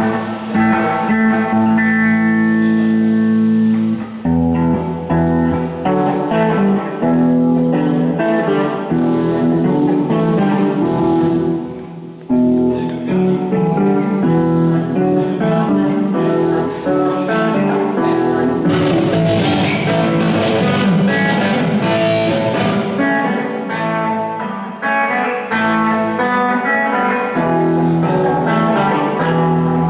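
Instrumental music led by guitar, without vocals. A chord is held for about four seconds, then the music moves into busier playing, with a brief drop about twelve seconds in.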